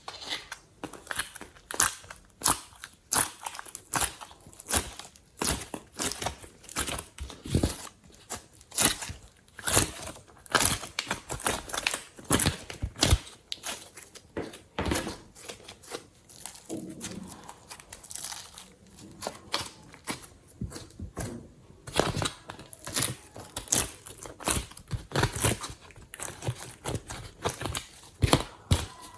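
Slime being kneaded and squeezed by hand, giving an irregular run of sticky crackling pops and clicks, with a quieter spell about two-thirds of the way through.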